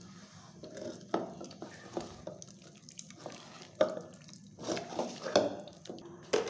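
A hand mixing wet rice-flour and wheat-flour batter in a steel bowl: squelching strokes at irregular intervals, a few of them louder.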